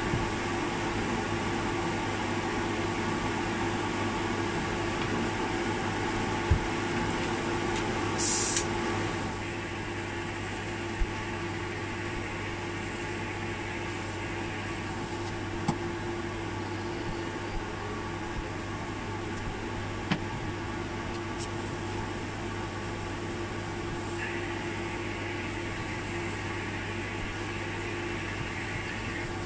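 Powder-coating spray booth's extraction fan running steadily, a hum with several steady tones, with a short high hiss about eight seconds in and a few light clicks.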